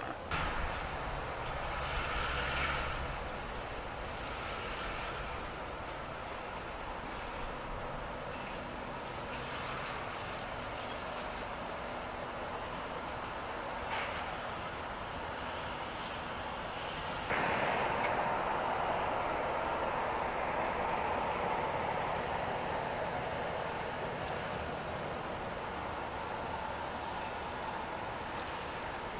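Insects calling steadily: a continuous high-pitched trill with a fast pulsing chirp running under it. A little over halfway through, a broad rushing noise comes in suddenly and stays.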